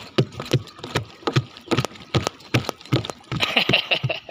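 Footsteps knocking on a floating plastic pontoon dock: hollow thuds about three a second as a small child walks and stamps across the plastic cubes.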